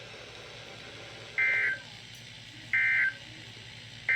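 Emergency Alert System end-of-message signal: three short, identical buzzy data bursts of SAME digital tones, evenly spaced about a second and a third apart, with the third just starting near the end. They mark the close of the alert broadcast.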